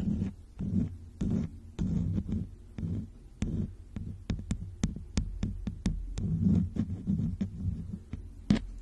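A soft brush stroked over the microphone in ASMR 'face tracing', each stroke a muffled low swish, with a run of sharp little clicks at about three or four a second through the middle.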